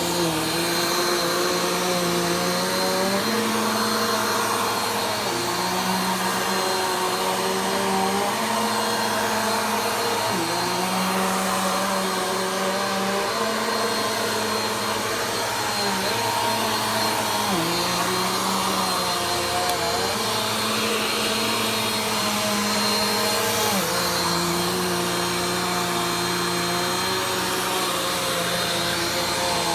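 Vacuum cleaner running continuously, its motor tone shifting up and down in pitch every few seconds.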